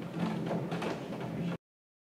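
Rain pattering and tapping against a window pane in a thunderstorm, with many irregular sharp drop hits over a steady low rush. The sound cuts off abruptly to dead silence about one and a half seconds in.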